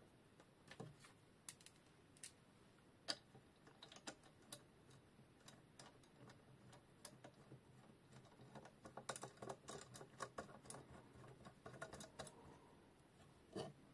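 Faint, irregular clicks and taps of small metal parts of a knife-sharpening clamp jig being handled and fitted: washers, knurled screws and the clamp bar knocking against the frame. A quicker run of clicks comes about two thirds of the way in.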